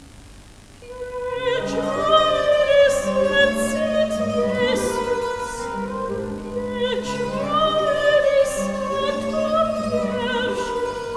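A soprano sings a slow, sustained operatic line in Russian with wide vibrato, entering about a second in, over a soft orchestral accompaniment of held notes.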